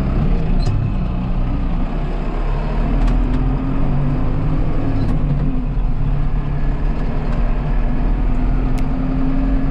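Farm tractor's diesel engine running steadily, its low pitch shifting slightly as the engine speed changes.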